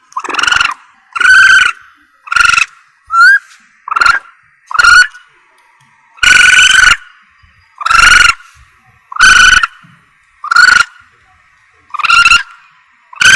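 A civet's call, repeated loudly about once a second, each call a short cry of under a second, some clipped and some drawn out, as used on a lure recording to call civets in.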